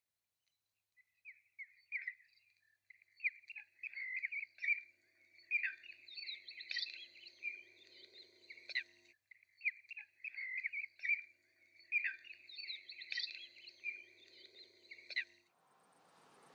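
Birds chirping and twittering in two near-identical stretches of about six seconds each, over a faint steady low hum. Near the end the chirping stops and a rising hiss takes over.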